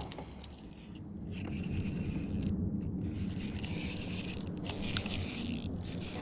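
Light clicks and rattles from handling fishing tackle (lure, line and spinning reel) over a steady low rumble that swells about a second in.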